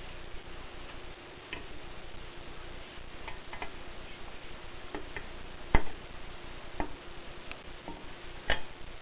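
Groma typewriter keys striking in an irregular, slow rhythm, about ten sharp clacks with two louder strikes near six seconds and near the end, over a steady background hiss and faint hum.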